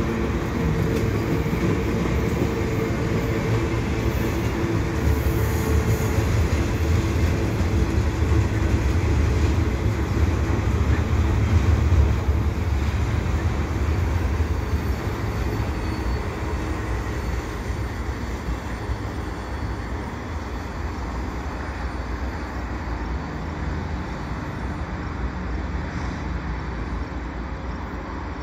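CN double-stack container train's well cars rolling past, a steady rumble of steel wheels on the rails. It fades from about fifteen seconds in as the last cars pass and the train moves away.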